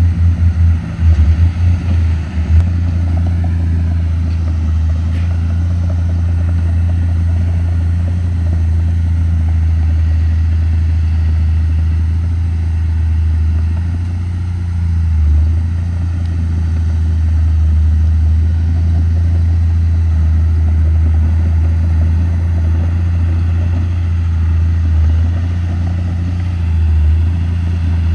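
Komatsu D31P bulldozer's diesel engine running, a deep steady drone that is choppy for the first couple of seconds and swells briefly in level about halfway through and again near the end.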